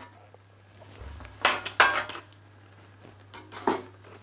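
Metallic knocks and clatter from handling a steel PC tower case and its removed side panel: a couple of sharp knocks about a second and a half in, then another near the end.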